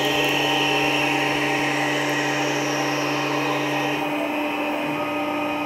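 Tormach 1100 CNC mill's spindle running steadily while it turns an aluminium workpiece against a high-speed steel tool on a roughing cut, with coolant spraying: a constant machine hum over a hiss of cutting and coolant. One low part of the hum drops out about four seconds in.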